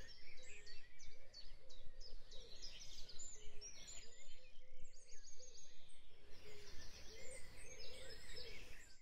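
Faint background track of songbirds chirping, with many short high chirps and twitters in quick, irregular succession.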